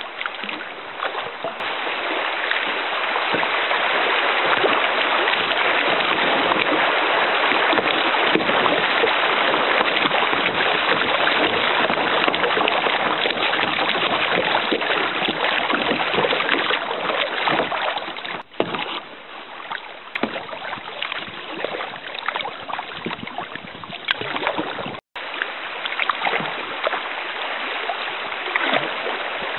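River water rushing through a shallow riffle around a kayak. The rush is steady and loud, eases about two-thirds of the way through, and cuts out for an instant near the end.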